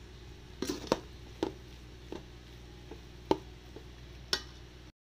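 A spatula knocks and scrapes against a pan while grated coconut mixture is stirred for coconut laddoos. There are about eight sharp, irregular clacks over a low steady hum. The sound cuts off suddenly near the end.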